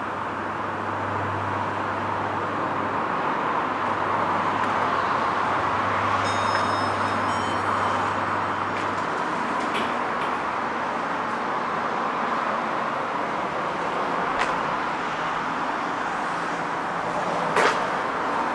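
Steady outdoor traffic noise, with a low steady hum from the glass elevator's machinery that stops about halfway through. A few sharp clicks follow, the loudest near the end.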